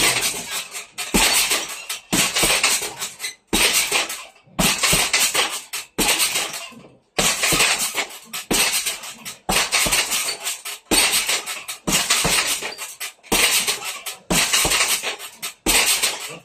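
Boxing gloves striking a hanging heavy bag about once a second, each blow followed by a jangling rattle from the bag's chains and its metal stand.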